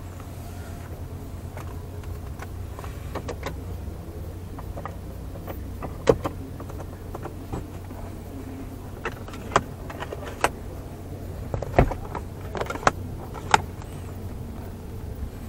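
Sharp plastic clicks and knocks of a car's sun visor being pulled down and handled, about six of them over the second half, over a steady low hum in the cabin.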